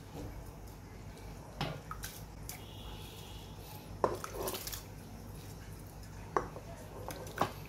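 Washed rice and its water tipped from a bowl into a pot of hot salted water, with a few short splashes and knocks of the bowl against the pot, a second or two apart, over a faint low hum.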